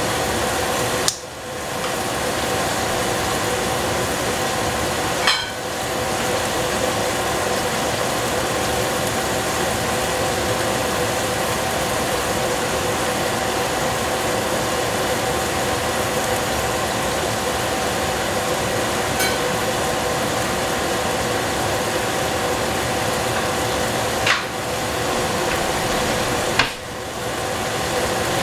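Steady hiss with a faint hum from a lidded stainless steel pot of cabbage cooking on the stove, broken four times by a brief click.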